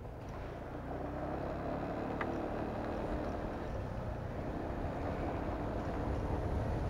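Motorcycle riding along at a steady pace on a wet road, its engine running low under steady wind and tyre noise.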